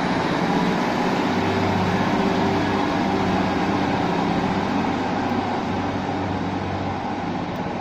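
Class 153 diesel multiple unit pulling away under power, its diesel engine running steadily and the sound easing off a little toward the end.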